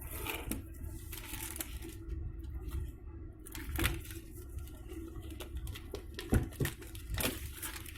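A smartphone retail box being unpacked by hand: crinkling and tearing of wrapping, with scattered clicks and scrapes of cardboard.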